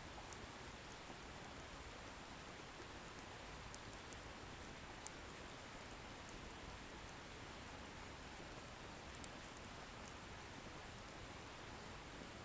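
Wood bonfire burning: a faint steady hiss with a few small, sharp crackles of the burning firewood, the loudest about five seconds in.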